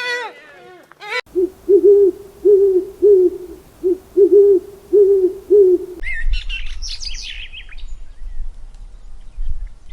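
A bird's low hooting calls, repeated about nine times at an even pace, then cut off about six seconds in by a burst of high chirping from small birds. An animal's call trails off in the first second.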